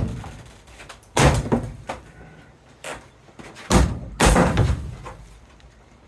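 Four loud knocks and thuds, spaced irregularly, each dying away in a short echo, from heavy packing or parts being handled.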